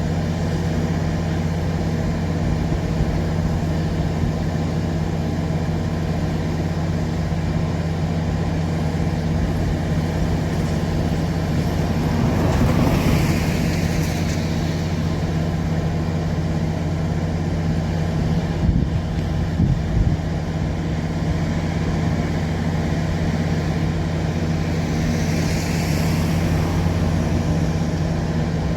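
Steady low drone of an idling engine. A vehicle swells past about twelve seconds in and again near the end, with a few short knocks in between.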